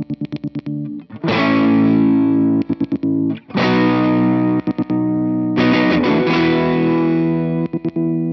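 Distorted electric guitar chords played through a rotary-phone effects unit. Each chord rings for a couple of seconds and is then chopped into a fast stutter, about four times over.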